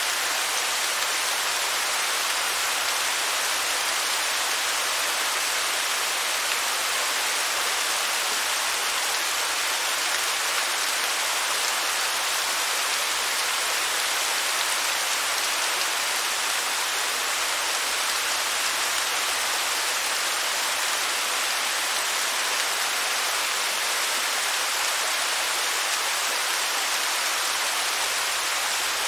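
Waterfall, a steady hiss of falling water with no change in level.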